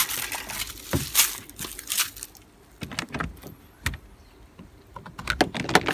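Handling noise of a portable EV charger's cable and connector being plugged into the car: a series of irregular clicks and knocks, roughly one a second, with rustling between them.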